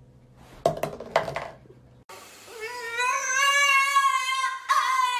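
A dog howling: one long howl that rises in pitch at first and then holds, breaking briefly near the end. Before it come two sharp knocks about half a second apart.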